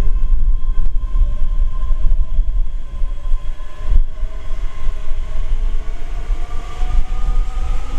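Loud low rumble of a vehicle under way, with a motor whine that rises slowly and steadily in pitch as it gathers speed.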